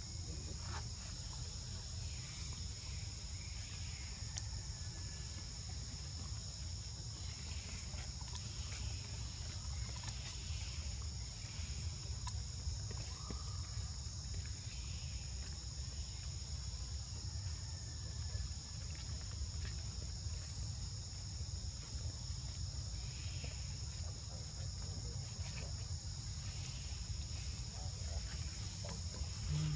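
Insects trilling in a steady high-pitched chorus, two unbroken tones, over a low rumble.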